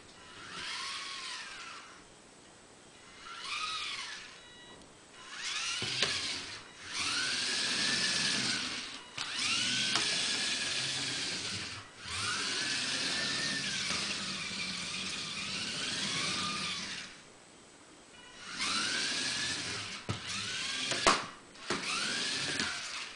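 Small DC motors of a hobby robot car, driven through a cheap motor controller, whining in bursts. Each burst rises and then falls in pitch as the motors speed up and slow down, with short pauses between runs and a sharp click near the end.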